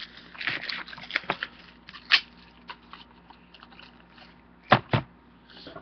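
Crinkling and rustling of packaging being unwrapped by hand, with scattered sharp clicks and two loud knocks in quick succession near the end.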